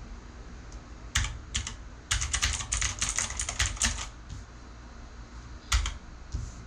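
Clicky mechanical keyboard switches on a Redragon Kumara K552-2 being pressed: a few separate keystrokes, then a quick run of about ten clicks, then one or two more near the end.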